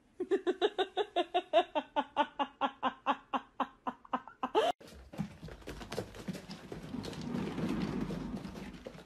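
A cat making a rapid string of short meows, about five a second, ending on a rising call. Then a sudden cut to a cat exercise wheel rumbling as it turns, swelling and easing off.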